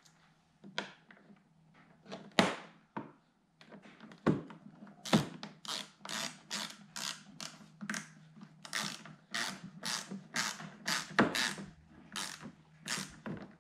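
Hand ratchet wrench clicking in short bursts as fasteners are tightened. A few scattered bursts at first, then a steady run of about two a second from about five seconds in.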